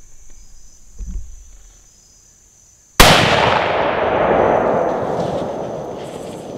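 A single loud gunshot about three seconds in, fired at a feral hog, followed by a long rolling echo through the woods that fades over the next few seconds.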